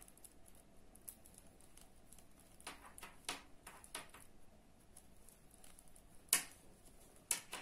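Knitting needles clicking lightly now and then while stitches are being bound off: a handful of scattered clicks, the sharpest about six seconds in.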